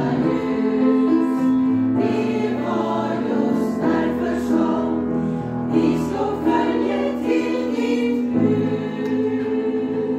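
Women's choir singing in parts with piano accompaniment, moving through held notes and ending on a long sustained chord from about eight seconds in.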